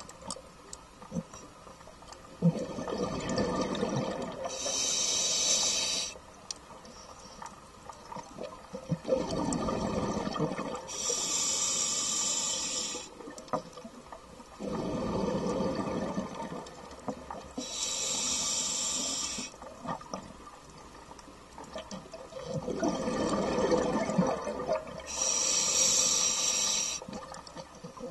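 Scuba diver breathing underwater through an open-circuit regulator: slow, even breaths about every seven seconds, each a bubbling rush of exhaled air followed by the hiss of an inhalation through the regulator.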